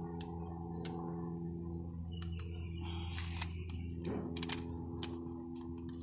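Several sharp plastic clicks and taps as a spray lance is pushed and twisted into a pressure washer's trigger gun, over a steady low hum.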